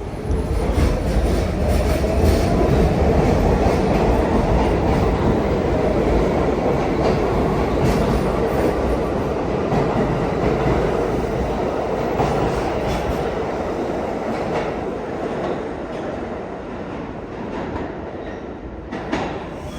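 New York City subway train running through the station: a motor whine rises in pitch over the first few seconds over a heavy rumble, with wheels clicking over the rails, and the noise slowly fades.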